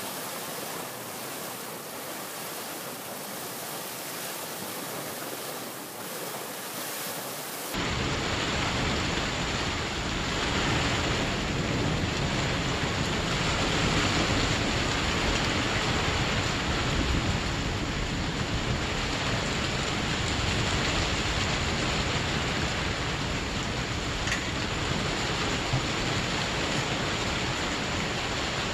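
Heavy rain pouring down in a thunderstorm, a steady hiss. About eight seconds in the sound changes abruptly and turns louder, with a deep rumble underneath the rain.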